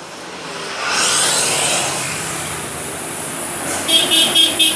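A road vehicle passes with a rising rush of engine and tyre noise, and near the end a horn gives a quick run of rapid high beeps.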